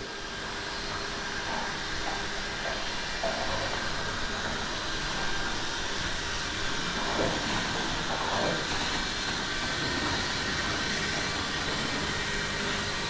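Steady rushing hiss of a running machine or fan, with faint voices in the background about halfway through.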